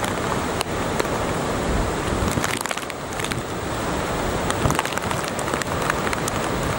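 Hurricane wind and rain with floodwater rushing: a steady, loud rush of noise with frequent sharp crackles all through it.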